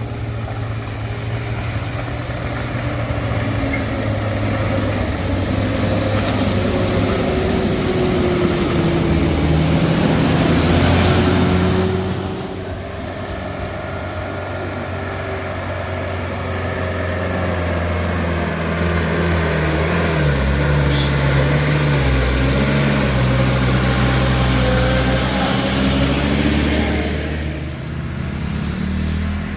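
Heavy road vehicles' engines labouring up a steep climb. The sound swells to a peak about ten seconds in and drops sharply near twelve seconds, then builds again with the engine note rising around twenty seconds.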